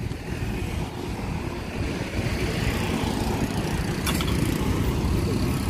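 Road traffic going by: a steady rumble of passing cars, trucks and motorbikes, with a brief click about four seconds in.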